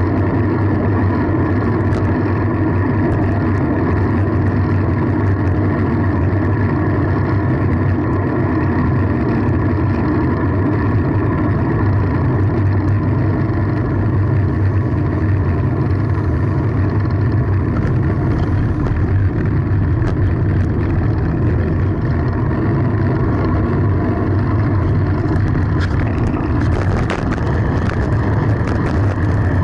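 Steady loud rushing of wind on the microphone and rolling road noise from a moving fixed-gear bicycle, unbroken throughout.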